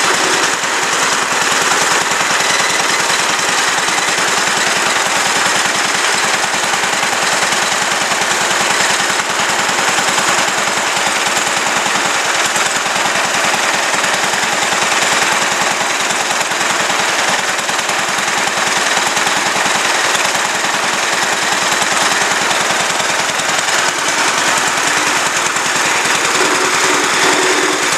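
1935 International LB single-cylinder engine running steadily, its exhaust a rapid, even popping beat.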